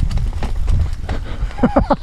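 Mountain bike rattling and knocking over rough off-road trail, with a heavy low rumble of ride and wind noise on the microphone. Near the end come a few brief pitched tones that bend up and down.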